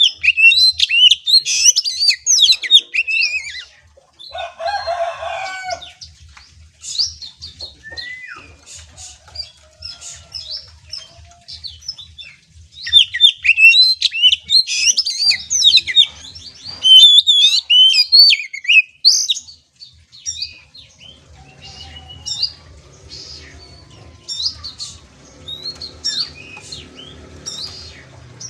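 Oriental magpie-robin singing a fast, varied song of high chirps, trills and whistles in bursts, with a harsher lower-pitched burst about four seconds in.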